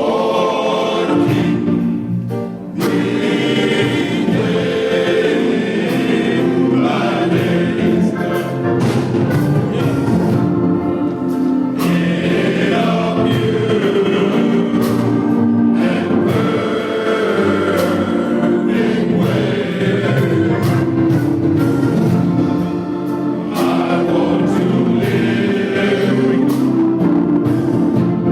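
Male chorus singing a gospel song with instrumental accompaniment and a regular beat.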